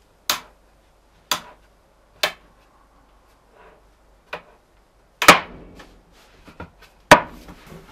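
Hard wood-on-wood knocks from the hinged wooden board of a shaving horse being lifted and let fall back onto the bench: six sharp knocks, three about a second apart at the start, a fainter one in the middle, and the two loudest in the second half.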